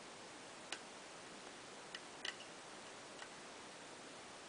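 A handful of faint, irregular metallic clicks from a lock pick and tension wrench working the pins of a six-pin Schlage-style pin-tumbler knob lock during single-pin picking, two of them close together about two seconds in.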